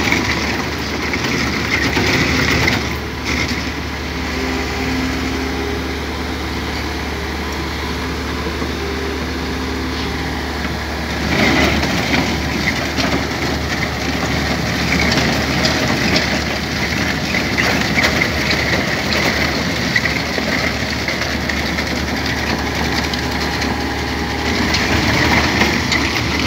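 Excavator-mounted hydraulic drum cutter grinding into a concrete wall: a continuous loud grinding over the Liebherr excavator's running engine. The grinding eases somewhat from about three to eleven seconds in, then picks up again.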